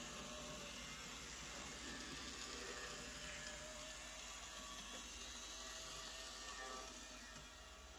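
Quiet room tone: a faint steady hiss with a faint whir.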